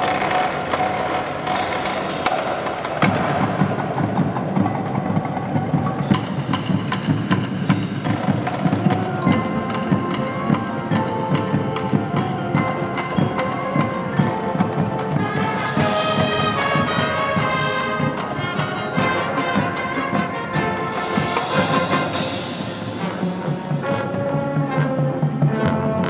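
Marching band playing: brass over a front ensemble of mallet keyboards, drums and timpani, with rapid percussion strokes throughout and the low end filling out about three seconds in.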